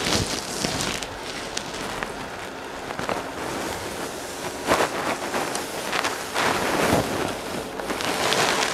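Clothes iron sliding back and forth over heavy drape fabric on a padded table, a steady swishing rub with a few louder strokes.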